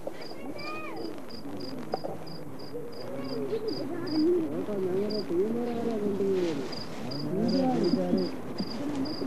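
People talking in the camp in their own language, with an insect chirping steadily in the background about three times a second; the chirping pauses for a couple of seconds midway, then resumes.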